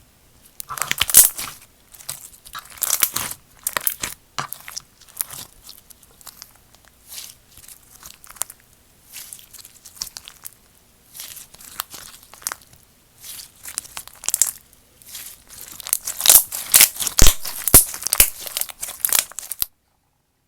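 Slime being squeezed, poked and stretched by hand, giving irregular bursts of crackling and popping. The bursts grow denser near the end, then stop abruptly.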